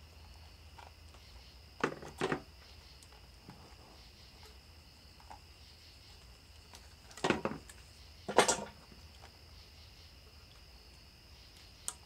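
Hands working plastic quick-splice wire connectors and wiring: a few short clicks and rustles, two close together about two seconds in and two more, the louder ones, around seven and eight seconds in.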